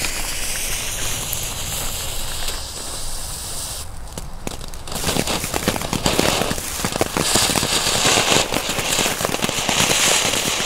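Small 'Feuerspucker' ground fountain firework hissing as it spurts sparks. From about five seconds in it turns to a louder, dense crackling. The output is meagre ('ziemlich mager').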